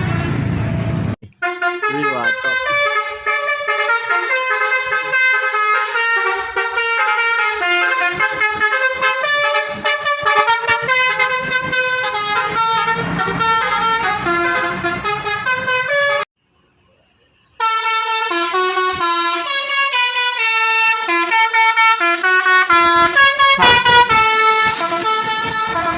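Basuri-style musical bus horn (telolet) playing a tune in quick stepped notes of several pitches. It starts over a low rumble and breaks off for about a second a little past halfway before the tune carries on.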